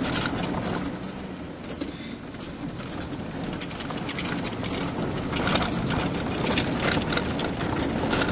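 A vehicle driving over a rough, unpaved riverbed track: steady engine and road rumble with scattered knocks and rattles.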